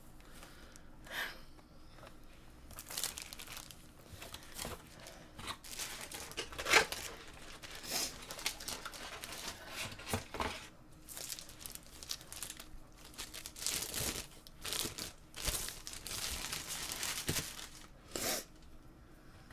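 Packaging being handled: wrapping crinkling and tearing in irregular short bursts.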